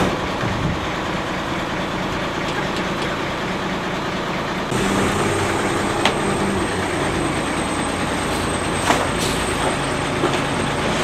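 Rear-loader garbage truck engine idling steadily, with a couple of sharp knocks as trash goes into the hopper.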